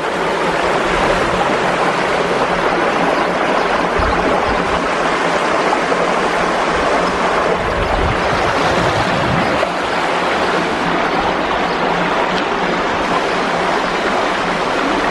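Fast-flowing creek rushing through a walled channel: a steady, loud wash of water noise.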